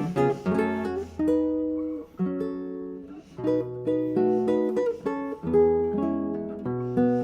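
Acoustic guitar music: chords picked and strummed, each one starting sharply and ringing out as it fades before the next.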